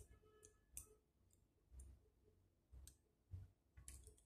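Near silence with a few faint, scattered clicks and soft low bumps, the sound of the plastic cube and glove being handled.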